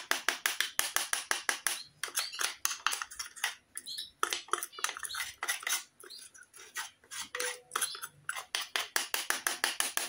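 Metal spoon scraping and clicking inside the metal bowl of an electric coffee grinder, knocking out ground dried orange peel: rapid, repeated scrapes and taps, with a short lull a little past the middle.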